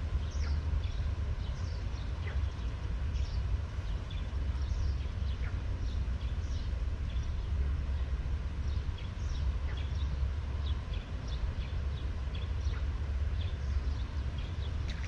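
Outdoor ambience: a steady low rumble, typical of wind on the microphone, with many short high bird chirps scattered throughout.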